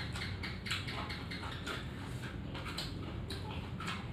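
Chewing and lip-smacking of a person eating: an irregular run of small wet clicks, about three or four a second.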